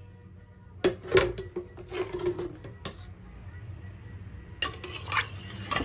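Steel ladle clanking and scraping against a metal kadhai while ghee is spooned into it: a sharp clank about a second in with a short metallic ring, then scattered clinks, busier near the end.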